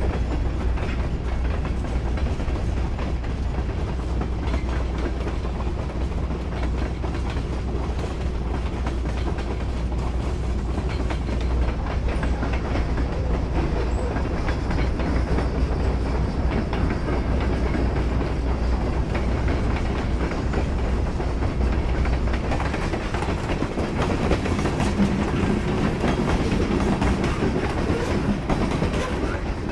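Freight train cars (covered hoppers, boxcars and tank cars) rolling past, their steel wheels rumbling and clicking over the rail joints without a break. The low rumble eases about three-quarters of the way through, and the clicking becomes sharper as the last cars go by.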